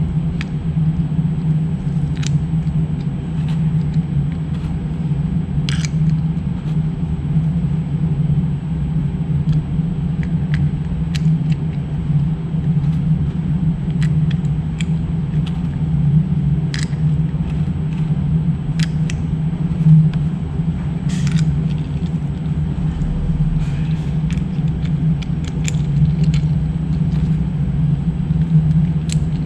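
A steady low hum runs throughout, with scattered small clicks as air-rifle pellets are pressed one by one into an FX Verminator magazine.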